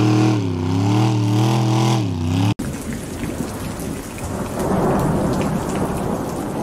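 Lifted Chevy mega truck's engine running hard under load as it pulls a weight sled, its pitch wavering up and down, cut off abruptly about two and a half seconds in. After that, a steady rushing noise like rain or a distant rumble.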